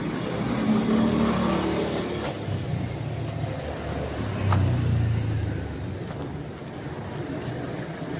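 Road traffic: motor vehicles passing, with a low engine rumble that swells twice, about a second in and again around five seconds in.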